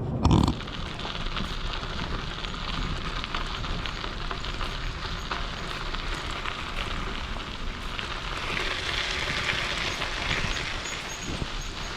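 Bicycle tyres rolling along the trail, a steady hiss, with a loud thump about half a second in.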